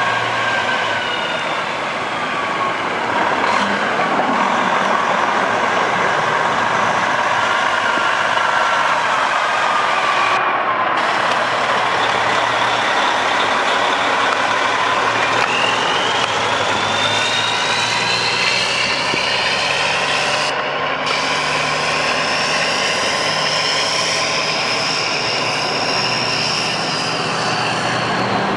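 A 2001 Freightliner FLD tractor's Detroit Diesel 12.7 L inline-six running as the truck drives around. Its engine note is steady underneath, and a high whine glides up and down in pitch.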